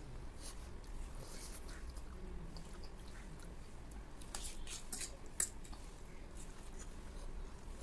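People eating Maggi instant noodles: slurping and chewing, with scattered wet clicks and smacks and one sharper click about five seconds in.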